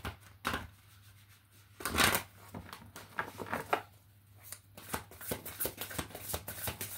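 A large deck of tarot cards being shuffled by hand, the cards slapping and flicking against each other: a loudest burst about two seconds in, then a run of quick flicks toward the end.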